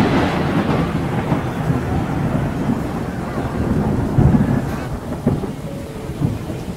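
The Dubai Fountain's water jets blasting into the air and their spray crashing back down: a loud, deep rumble like thunder, with a few heavier thumps about a second apart in the second half.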